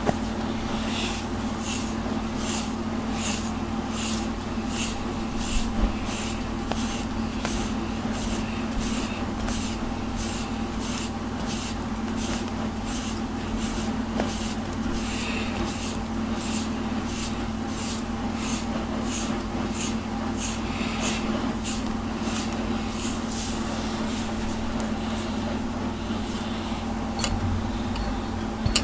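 A grooming brush raking through a cat's fur in quick, regular scratchy strokes, about two a second, thinning out near the end. A steady low hum runs underneath.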